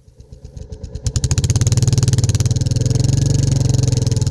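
Royal Enfield Classic 350's single-cylinder engine and exhaust, faint at first and then suddenly loud about a second in. It settles into a steady, rapid, even exhaust beat while the bike is under way.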